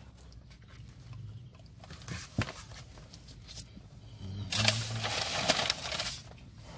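A person eating a fast-food burger: quiet chewing and mouth sounds, turning louder and noisier for about two seconds past the middle.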